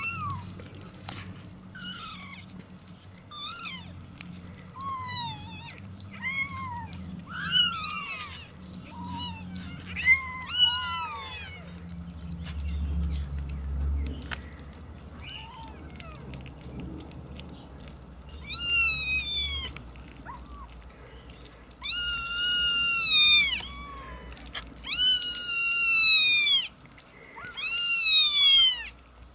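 Several 27-day-old kittens mewing: high, thin, arching mews, small and scattered at first, then louder and longer in clusters through the second half.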